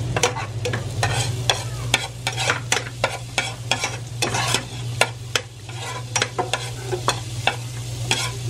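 Minced garlic sizzling in melted margarine in a pan while a spatula stirs it, scraping and tapping against the pan many times. A steady low hum runs underneath.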